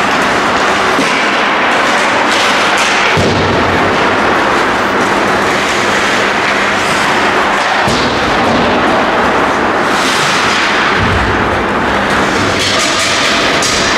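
Ice hockey rink ambience picked up during play: a loud, steady rushing noise whose low rumble swells and drops a few times, with a few faint knocks near the end.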